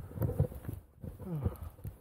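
Boots crunching and stamping in deep snow, step after step, on a steep uphill climb, with hard breathing from the climber and a short sliding breath sound about a second and a half in.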